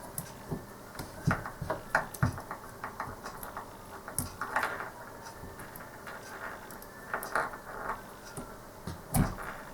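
Irregular small clicks, taps and brief rustles of hands working heat-shrink tubing over soldered wire joints.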